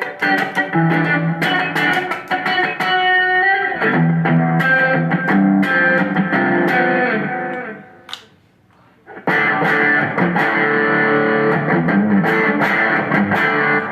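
Electric guitar played through a Zoom G3Xn multi-effects pedal on a crunch preset with the neck pickup, playing a groove. It stops for about a second past the middle, then starts again.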